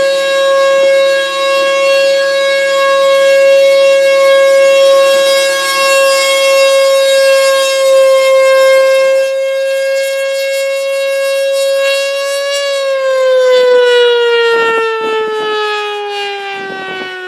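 Federal Sign & Signal Thunderbolt 1000A warning siren sounding its Alert signal, a steady tone with a growl, on a unit whose bearings are really rough. About twelve seconds in, the tone rises slightly, then winds down in a slow falling pitch.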